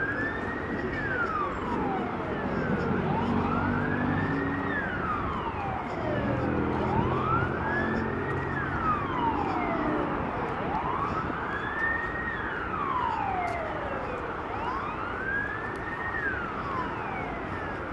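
Emergency vehicle siren in a slow wail, each cycle rising quickly and falling slowly, repeating about every four seconds, with a vehicle engine humming underneath that fades after about ten seconds.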